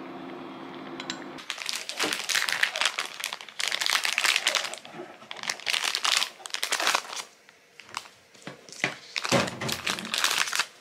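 A low steady hum for the first second or so, then food packaging crinkling and rustling in irregular bursts as a packaged sesame tofu is handled and opened.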